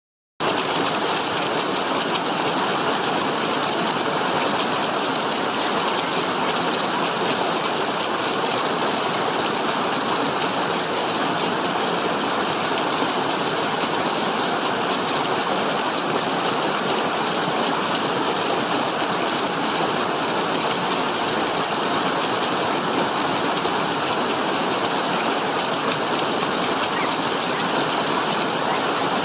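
Rushing water with a steady, even hiss that cuts in abruptly at the very start and holds unchanged.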